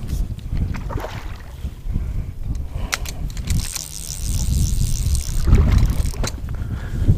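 Wind buffeting the microphone as a steady low rumble over the marsh, with a few sharp clicks and a higher hiss from about three and a half to six seconds in.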